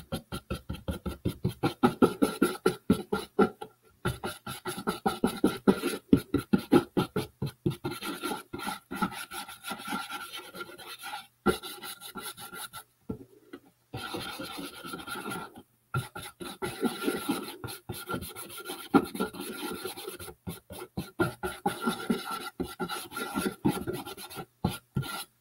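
A nearly dry paintbrush scrubbing across a cardboard box in quick, short back-and-forth strokes, a rasping scratch that stops for a few brief pauses.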